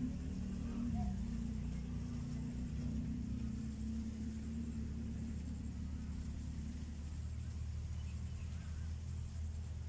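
Steady low rumble of a running motor, with a faint steady high-pitched whine above it.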